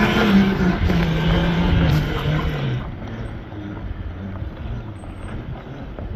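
Electric-converted quad ATV driving over gravel: its motor hums with a tone that slides lower, over rough tyre and ground noise. About three seconds in the sound drops suddenly to a quieter rumble as the quad pulls away.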